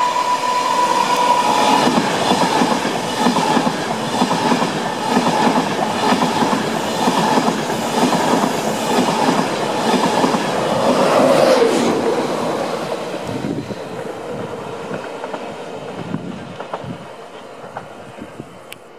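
InterCity 225 express (Class 91 electric locomotive with Mark 4 coaches) running fast through a station: rushing wheel-and-rail noise with the clickety-clack of the wheels over the rail joints. It fades away after about twelve seconds as the train passes.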